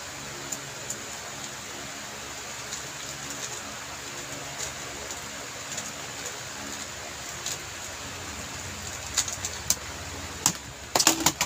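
X-Man Tornado V3M 3x3 speedcube being turned rapidly through a solve: light, scattered plastic clicks over a steady hiss. Sharper, louder clicks come in the last couple of seconds as the solve ends.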